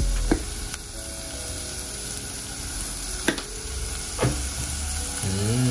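Diced onions and red bell pepper sizzling in hot oil in a pot, a steady frying hiss with a few sharp ticks.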